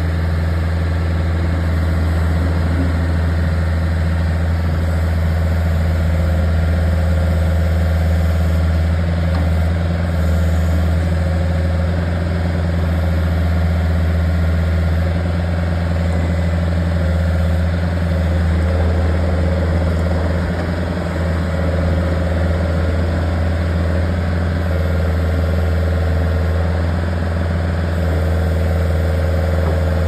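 Bobcat mini excavator's diesel engine running steadily at idle, a constant low hum.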